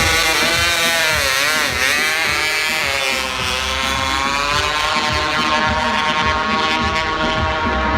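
A vehicle engine revving hard, its pitch dipping and climbing over the first few seconds, then holding high and steady as it pulls.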